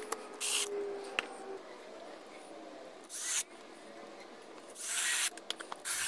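Cordless drill driving screws through a cabinet hinge's mounting plate into bamboo plywood, in short bursts: four runs of under half a second each, with a few light clicks between them.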